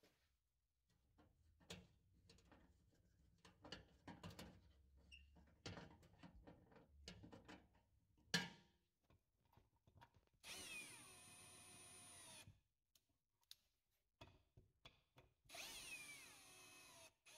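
Handling knocks and clicks, with one sharp knock, then a power drill runs twice for about two seconds each time, its pitch falling slightly as each run begins.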